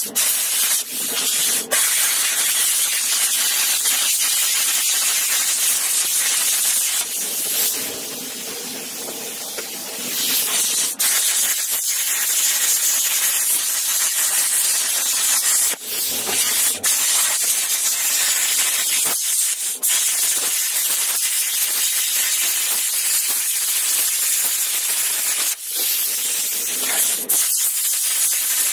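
Handheld plasma cutter cutting through rusty steel plate: a steady, loud hiss of the arc and air jet. It dips briefly a few times and goes softer for about two seconds a third of the way through.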